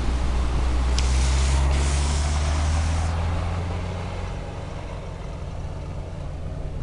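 UAZ off-road vehicle's engine running with a steady low drone that eases off in the second half. About a second in, a sharp-starting rush of hiss joins it for about two seconds.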